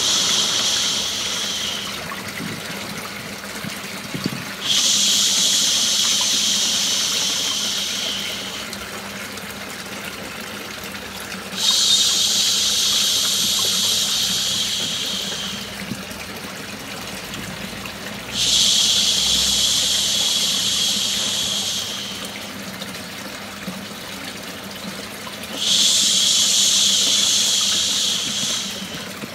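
Long, hissing 'shhh' shushing sounds, each three to four seconds long, starting suddenly and fading, repeated about every seven seconds. Under them runs a steady sound of running water, the white noise used to lull a baby to sleep.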